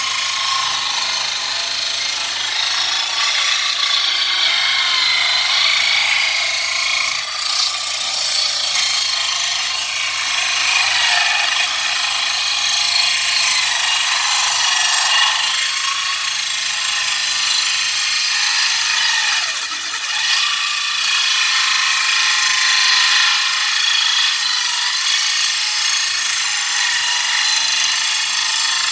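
Small saw-bench circular saw ripping a teak beam lengthwise: a steady, loud cutting noise from the blade in the wood, easing briefly twice.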